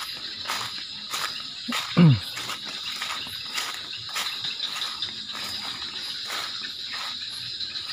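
Crickets chirring steadily, with regular soft ticks about twice a second. About two seconds in comes one short low call that falls sharply in pitch, the loudest sound.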